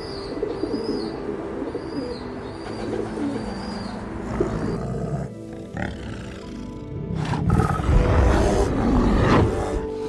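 Background music throughout, with a bird chirping repeatedly in the first few seconds. After a break, a large animal gives a loud, low call for a few seconds near the end.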